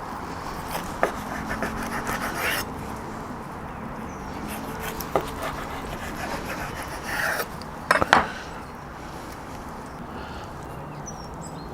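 Knife cutting through a rack of smoked, glazed pork ribs on a wooden board: short scraping strokes and a few sharp knocks of the blade against the board, over a steady background hiss.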